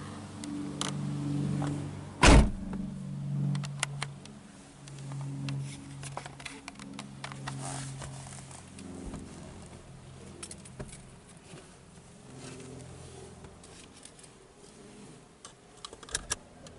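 Nissan Primera car door pulled shut with one loud thump about two seconds in, over a low hum, followed by scattered small handling clicks.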